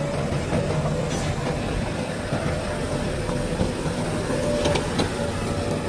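Heavy diesel engine of earthmoving machinery running steadily, with a few short metallic knocks near the end.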